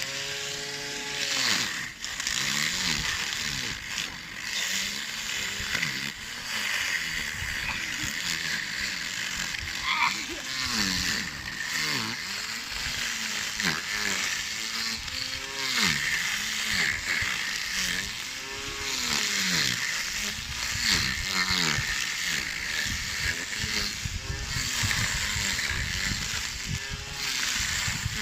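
Small lawn mower running and cutting grass, its motor pitch rising and falling over and over with a steady hiss from the blade.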